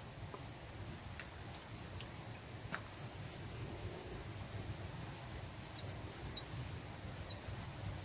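Quiet rural outdoor ambience with scattered faint, short high chirps, and two or three soft clicks as the dry twig nest is handled.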